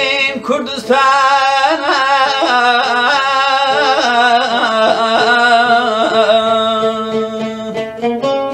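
A man singing a slow, wavering melody with long held notes to his own oud accompaniment. Near the end the voice stops and the oud's plucked notes carry on alone.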